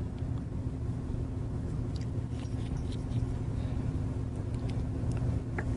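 Steady low background hum, with a few faint soft ticks and scrapes of clay being handled, one of them near the end.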